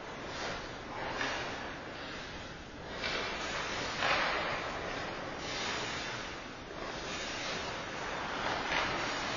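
Ice rink sound with irregular swishing scrapes of skate blades on the ice over a steady background hiss, the swishes coming every second or so.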